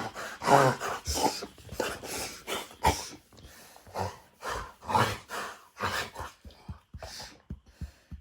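Doberman reverse sneezing: rapid, repeated forceful inhalations through the nose, about two a second, growing weaker and sparser near the end.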